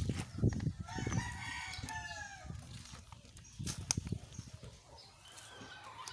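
A rooster crowing once, starting about a second in, with a few dull knocks before and after it.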